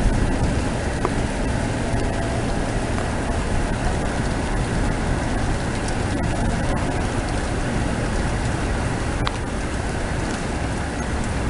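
Outdoor thunderstorm ambience in a light drizzle: a steady low rumble with a hiss over it and a few faint ticks.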